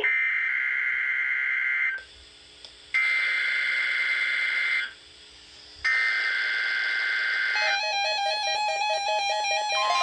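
NOAA Weather Radio SAME header: three loud bursts of buzzing digital data tones, each about two seconds long with a gap of about a second between them. This is the coded header that opens a Required Weekly Test. Near eight seconds in, the weather-alert receivers start sounding a quick, repeating pattern of electronic beeps.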